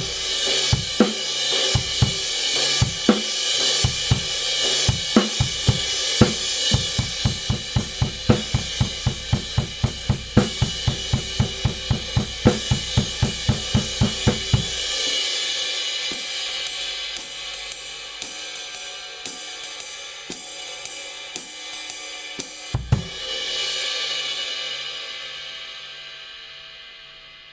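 Kingdo Artist Dark 20-inch ride cymbal played in a steady groove on a drum kit, with deep drum hits under the strokes for about the first fifteen seconds. Lighter ride strokes follow, then one accented hit near the end, and the cymbal's wash fades away.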